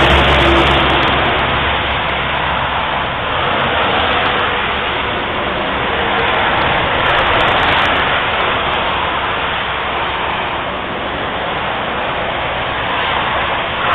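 Motorway traffic passing on a wet road: a steady hiss of tyres on spray, swelling and easing as vehicles go by. A lorry's engine hum fades out in the first couple of seconds.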